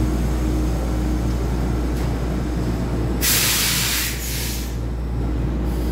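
Taiwan Railway EMU3000 electric multiple unit standing at the platform with the steady hum of its onboard equipment. About three seconds in comes a short, sharp hiss of compressed air released from the train's pneumatics, lasting about a second before it dies away.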